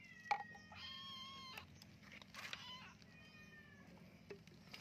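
A young kitten meowing repeatedly in drawn-out, slightly falling calls while held wet for a flea bath, with a few sharp clicks between the calls.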